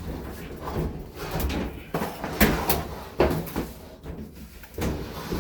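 Kenmore clothes dryer being pulled out from the wall, its cabinet scraping and bumping with a series of irregular knocks.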